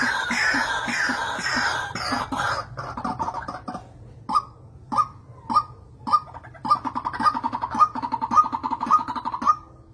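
White-breasted waterhens calling: a dense run of overlapping harsh, croaking notes, thinning after about three seconds into a regular call about every half second with rattling runs in between.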